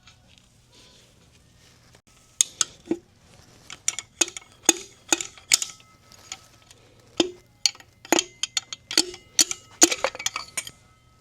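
Small metal parts clinking and clattering against metal, a quick run of sharp clinks, some with a brief ring, starting about two seconds in and going on until near the end.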